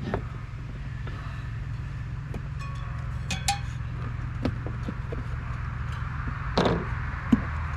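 Scattered light clicks and clinks, with a brief louder rustle near the end, as a mountain bike wheel and its downhill-casing tire are handled while the tire is fitted onto the rim, over a steady low hum.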